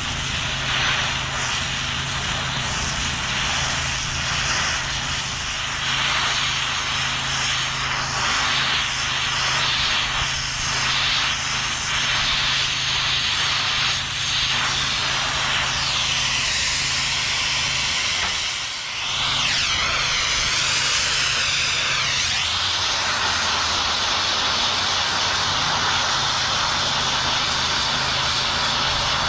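Multiplaz 3500 plasma torch running with a steady, loud, jet-like hiss as it heats a cast-iron casting for brazing with brass rod, over a low steady hum. The hiss dips for an instant about two-thirds of the way through, then carries on.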